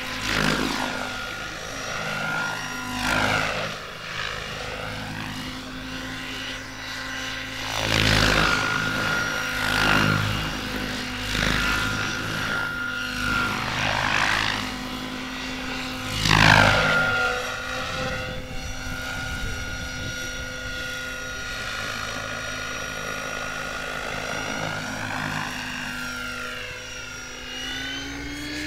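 Electric 700-size RC helicopter (Goblin Kraken 700) flying aerobatics: a steady whine from the motor and rotor, with several loud passes where the pitch swoops sharply, the loudest about 8 and 16 seconds in. Near the end the whine rises smoothly in pitch.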